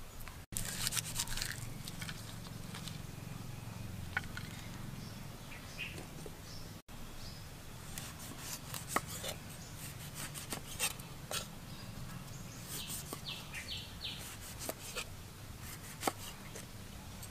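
Food-preparation handling noises: scattered light clicks and knocks over a steady low hum, with a few faint, short high chirps.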